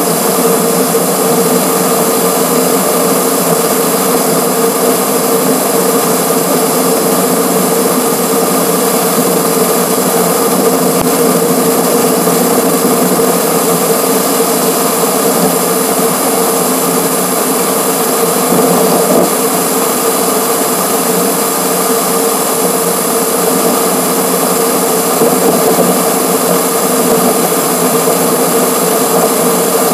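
Steady wind and road noise from a camera on a car's front grille at highway speed, played back six times fast, giving a constant mechanical whine over an even rush.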